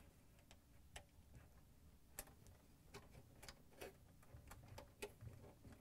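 Near silence with a few faint, scattered clicks and taps as a wire's push-on connector is fitted onto a metal tab.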